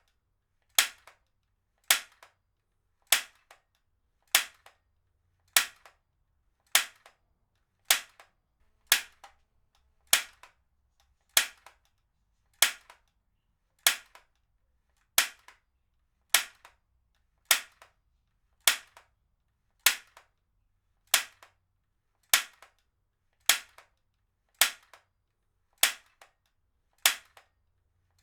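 Heavy-duty stapler fired again and again at an even pace, about one sharp snap every 1.2 seconds. Each snap is followed by a fainter click.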